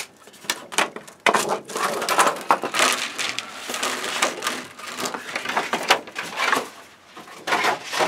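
A large, thin insulating sheet being peeled off a circuit board and lifted away, crinkling and crackling with many sharp clicks, busiest in the middle and easing off near the end.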